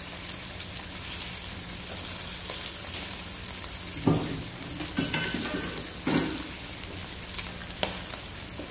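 Breaded torsilyo fish sizzling and crackling steadily in hot oil in a wok, near the end of frying with the fish already crisp. A few louder pops or knocks stand out in the second half.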